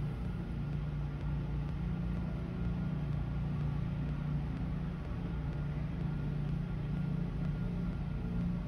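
Steady low engine and road drone of a moving vehicle, heard from inside its cab.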